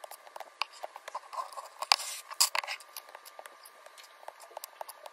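Plastic MathLink linking cubes clicking and rattling in the hands, with two louder snaps about two seconds in as the stick of cubes is broken apart.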